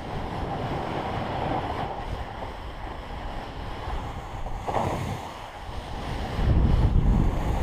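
Wind rumbling on an action camera's microphone over the hiss of a splitboard sliding on crusty snow, the wind rumble growing louder about six seconds in.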